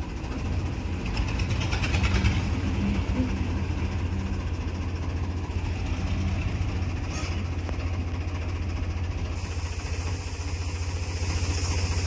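Tractor engine running steadily while it powers the hydraulic tipper lifting a trolley loaded with wheat. About nine seconds in, a steady hiss joins it as the grain starts sliding out of the tipped trolley.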